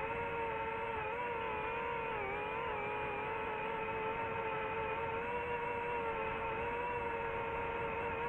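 Quadcopter drone's motors and propellers whining steadily, several close pitches sounding together, with small wavers in pitch as the throttle shifts.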